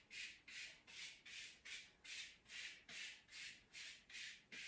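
Dry brush bristles sweeping over the bare skin of an arm in short, quick strokes: a faint, regular scratchy brushing, about two and a half strokes a second.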